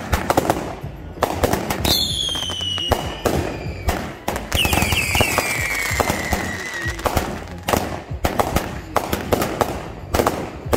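Consumer aerial fireworks going off in quick succession, a dense run of bangs and crackling pops. Two long whistling tails fall in pitch, one about two seconds in and another from about four and a half to seven seconds.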